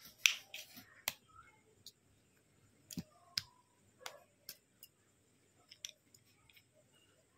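Small plastic clicks and snaps as the plastic housing of a Bluetooth neckband's control unit is pried apart with a small screwdriver. A handful of sharp clicks spread over several seconds, the loudest at the very start.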